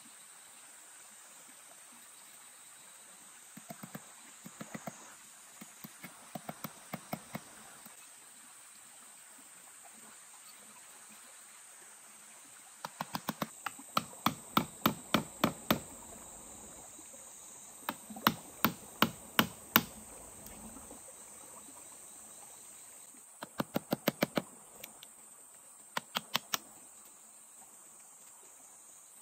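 Bursts of quick, sharp knocks, about four a second, each run lasting a second or three and coming several times. Under them is a steady, high-pitched drone of forest insects.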